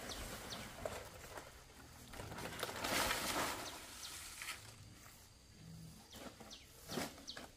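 Dry palm fronds and bamboo on a roof frame rustling loudly for about a second as a bamboo pole is pushed up onto them, with a sharp knock of bamboo near the end.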